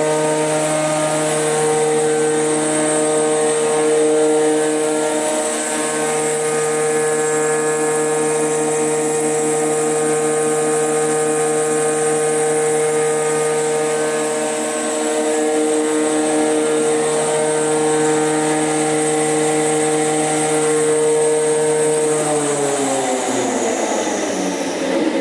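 WOLF AD 510S combination jointer/thickness planer running idle, a steady drone made of several held tones from its motor and spinning cutterblock. About 22 seconds in it is switched off, and the pitch falls steadily as the cutterblock spins down.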